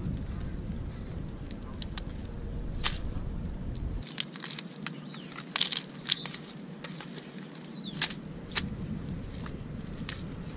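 Dungeness crab shells cracking and snapping as gloved hands pull the crabs apart in a plastic bag: several separate sharp cracks among softer crackles of shell and bag, over a low wind rumble on the microphone.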